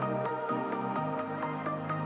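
Electronic music: sustained synth chords under a quick, regular plucked synth pattern.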